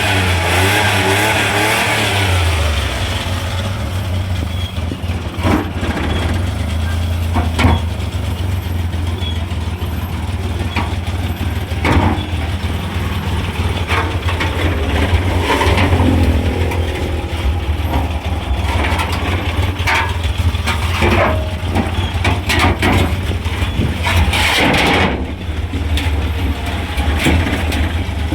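A Multicab's 12-valve engine running steadily, with scattered sharp clicks or knocks over it.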